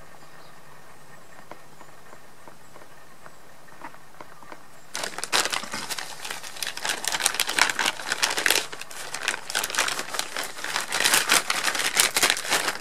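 Clear plastic bag crinkling and rustling as a bundle of cable ties is pulled out of it, a dense crackle that starts about five seconds in.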